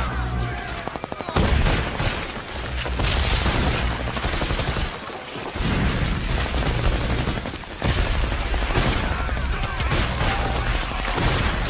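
Action-film soundtrack of rapid automatic gunfire and heavy booms, with a fast volley about a second in.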